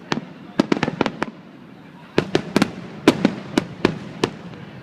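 Fireworks bursting: a quick flurry of sharp bangs, a short lull, then a second, longer run of bangs.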